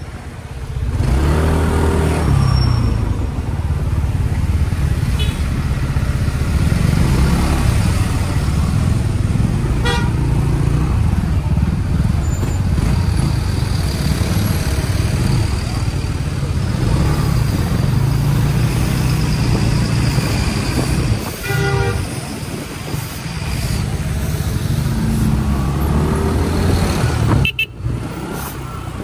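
A 2023 Kymco KRV 200 scooter's engine running under way in traffic, with a rise in revs about a second in and a fall near the end. Short vehicle-horn toots sound about a third of the way in and again past two-thirds.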